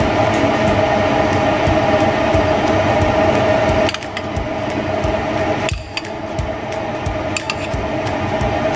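A steady mechanical hum with a strong constant tone, dipping briefly about four and six seconds in, with light clicks and clinks of a metal spoon scraping smashed avocado out of a glass bowl onto toast.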